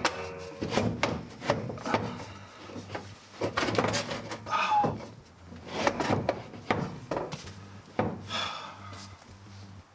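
A vehicle center console being pushed and shifted into place between the front seats: irregular scraping and rubbing with occasional knocks as it is worked into position.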